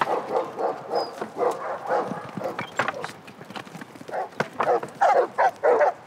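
Working sheepdogs barking in short repeated barks, louder and faster near the end.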